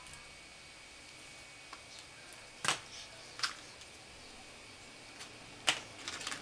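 A few sharp clicks and scrapes from a potter handling a clay pot and a thin wooden modelling tool: one loud click about two and a half seconds in, a smaller one soon after, another loud one near the end followed by a quick run of small ticks, over a faint steady hiss.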